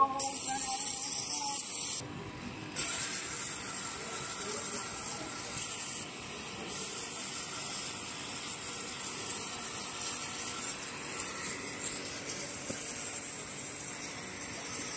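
Steady hiss of a high-pressure water jet from a 3 HP induction-motor pressure washer blasting a wet concrete floor. The sound drops away briefly twice, about two seconds in and about six seconds in.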